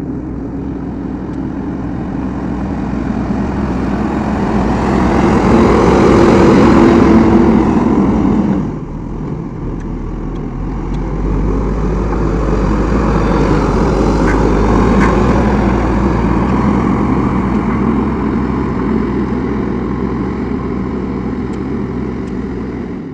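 Diesel engine of a JCB 3DX backhoe loader running and working under varying load. It rises to a peak about six to eight seconds in, drops abruptly just before nine seconds, builds again, then eases off toward the end.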